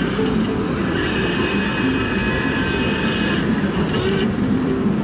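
Loud urban traffic noise: a steady, dense rumble, with a high-pitched squeal of several tones at once from about a second in until past three seconds.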